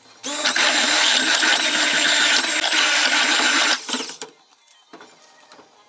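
Handheld stick blender running in a plastic jug of soap batter, starting about a quarter second in, running steadily for about three and a half seconds, then switched off and winding down.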